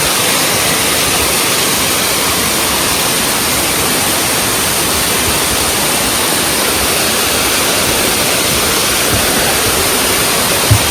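Waterfall running: a steady, even rush of falling water, with a brief low bump near the end.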